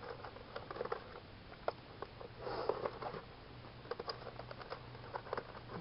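Light, irregular clicks and soft rustling of small screws and hinge hardware being handled in the fingers, with a brief softer rustle about two and a half seconds in.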